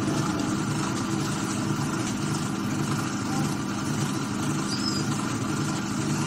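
Steady motor hum of a potter's wheel spinning while a clay pot is shaped on it.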